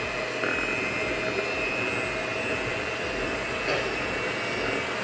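Kenwood electric hand mixer running at a steady speed, its beaters whisking pancake batter; a steady motor whine over the whirring of the beaters.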